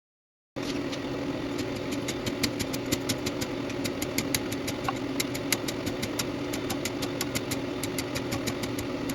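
A steady mechanical drone with a low hum, dotted with many quick, light, irregular clicks, cutting in abruptly about half a second in.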